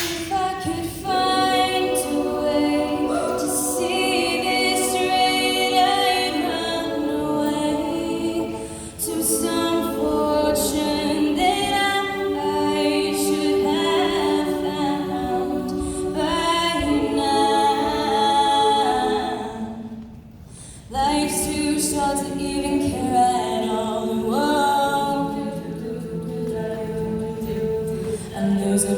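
An a cappella vocal group singing in several-part harmony, with no instruments, pausing briefly about twenty seconds in before the voices come back.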